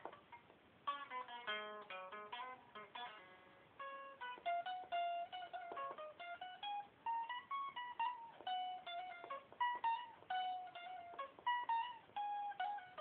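Acoustic guitar played solo. About a second in, a quick run of picked notes falls in pitch, and from about four seconds on a melody is picked one note at a time.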